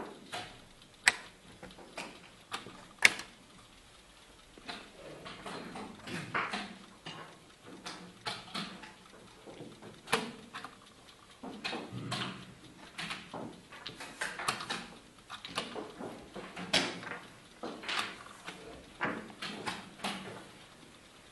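Irregular sharp clacks of chess pieces set down on the board and the buttons of mechanical analog chess clocks pressed during fast blitz play, with two loud clicks in the first few seconds.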